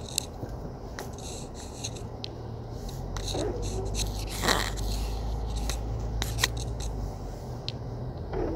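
A vehicle engine's low steady hum, swelling about two seconds in and easing off near the end, with scattered sharp clicks and scrapes over it.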